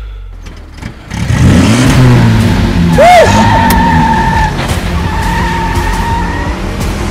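Car engine suddenly revving hard about a second in as it pulls away, then tyres squealing in two long stretches.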